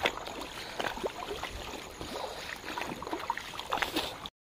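Feet wading through a shallow rocky stream, with irregular splashes and sloshes of water. It cuts off suddenly near the end.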